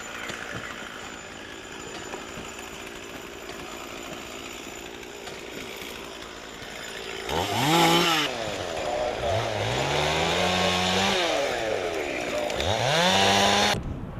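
Chainsaw revved three times, each rev rising in pitch, holding, then dropping back, with the last one cutting off suddenly near the end. Before the revs there is a fainter, steady engine hum.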